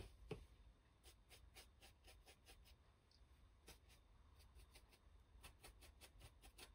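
Faint, quiet scratching of a small flat paintbrush dry-brushing paint over a laser-cut MDF piece in many short strokes, with a light knock just after the start.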